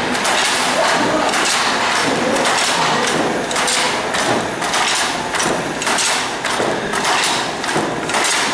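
Wooden fly-shuttle handloom, built to weave two fabrics at once, being worked by hand: the shuttle being thrown and the batten beating up the weft make repeated wooden knocks and clatter, about two a second.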